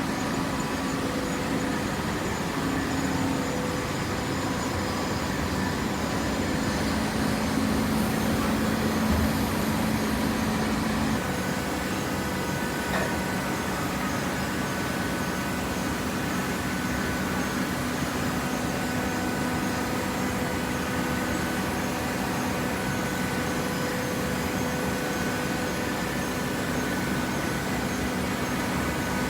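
Hydraulic baler's power unit, an electric motor driving the hydraulic pump, running with a steady hum. The pitch of the hum shifts about eleven seconds in, as the load on the pump changes.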